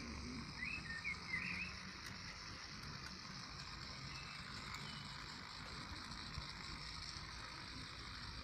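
H0 model diesel shunting locomotive running along Märklin metal track with a boxcar in tow, its small electric motor, fed by a powerbank in the wagon rather than from the rails, giving a steady faint whirr with the rolling of the wheels.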